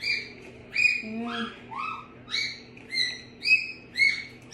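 Bird-like chirping: a short, high, pitched call repeated steadily, roughly every half second.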